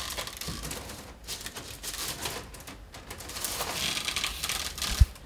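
Peeled willow wicker rods rustling and clicking against each other and the basket as a fresh rod is taken up and handled in the weave, with one short low knock near the end.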